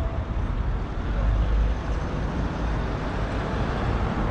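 Road traffic noise: a steady low rumble of vehicles running along the street.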